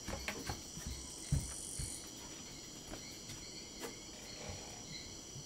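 Steady high-pitched chorus of insects, with a higher buzz that swells and then cuts off about two seconds in. A few soft low knocks come through, the clearest about a second and a half in.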